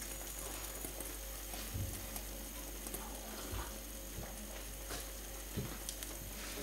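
Milk omelette frying in a pan, a quiet steady sizzle, with a few soft knocks and clicks.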